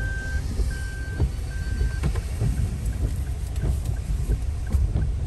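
A car's parking-sensor beeper inside the cabin: long beeps about once a second, then short, quicker beeps from about two seconds in, the sign of the car closing on an obstacle while parking. Under it, low engine and road rumble and scattered taps of rain on the car.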